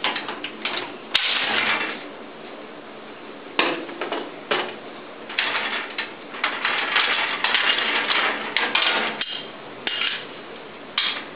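Irregular knocking and rattling of hard objects in bursts of clatter, with a sharp click about a second in and the longest run of rattling in the second half.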